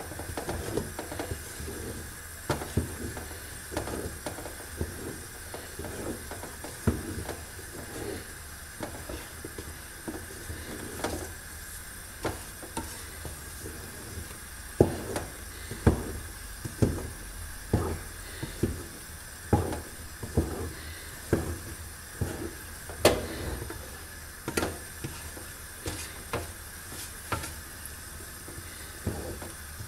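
Wooden spoon stirring a thick sesame and hazelnut paste in an aluminium pot, knocking against the pot's side at an uneven pace, often about once a second, over a steady hiss. The knocks are loudest in the middle stretch.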